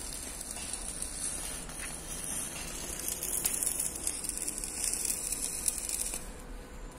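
Electric arc welding on steel pipe: a steady crackling hiss of the welding arc that stops about six seconds in.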